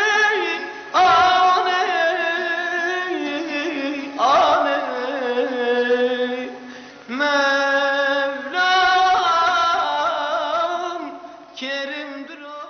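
A high male voice singing a Turkish uzun hava, a free-rhythm folk lament, in long, ornamented phrases with short breaks between them. The singing fades near the end.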